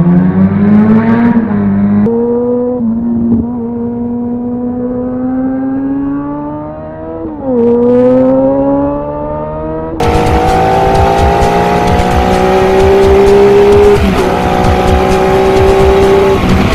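Motorcycle engine accelerating hard, its pitch climbing through the gears with shifts about two and seven and a half seconds in. About ten seconds in the sound cuts to another motorcycle running at high revs under heavy wind noise.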